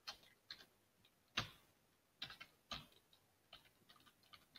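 Faint computer keyboard keystrokes: scattered single key clicks at an uneven pace, the loudest about a second and a half in.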